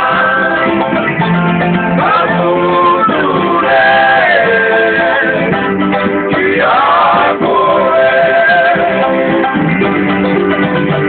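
Male voices singing a song to strummed acoustic guitars and ukuleles.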